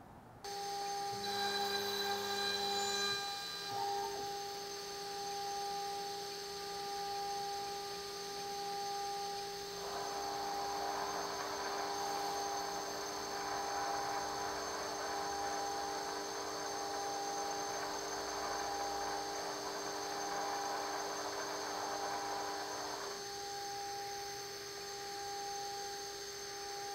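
Spindle motor of an all-in-one gantry woodworking machine starting up about half a second in and running with a steady whine, boring dowel holes in wood. A rougher noise joins for about thirteen seconds in the middle, then the plain whine returns.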